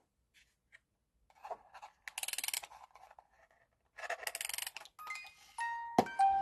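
Hello Kitty sound toy being handled, with faint ticks and two short rasping bursts of rapid clicks. Near the end there is a knock, and the toy starts playing a chiming electronic tune.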